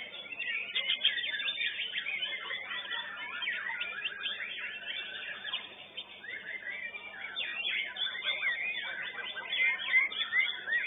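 White-rumped shama (murai batu) singing: a rapid, varied stream of whistles, trills and chattering notes, with a brief lull about six seconds in.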